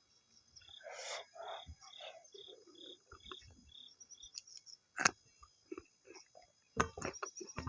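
Close-up eating and mouth sounds with a few sharp clicks, over a regular high insect chirp of about two or three chirps a second. The chirping runs for a few seconds and stops about four seconds in.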